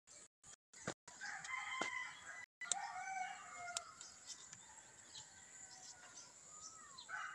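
A rooster crowing faintly, with a long call starting about a second in and another crow beginning near the end.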